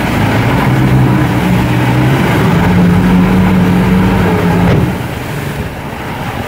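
Suzuki outboard motor running under throttle with wind and water rush; its pitch climbs a little partway through, then the throttle is cut back about five seconds in.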